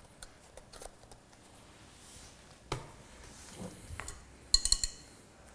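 Light scattered clicks of kitchen utensils. About four and a half seconds in comes a quick run of ringing metallic clinks as a metal utensil knocks against a saucepan.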